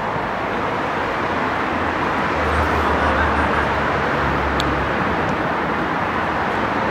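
Steady background hiss and rumble, like distant road traffic, with a deeper rumble through the middle and a single sharp click about four and a half seconds in.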